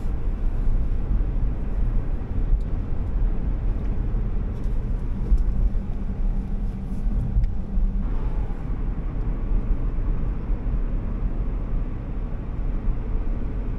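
Honda S660's turbocharged three-cylinder engine running while the car drives at speed, heard from inside the cabin with steady road and tyre noise. About eight seconds in, the steady engine tone drops away and the note changes.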